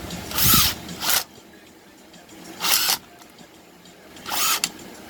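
Cordless power drill/driver run in four short bursts, its motor pitch swooping up and down, driving screws back into a chainsaw's housing.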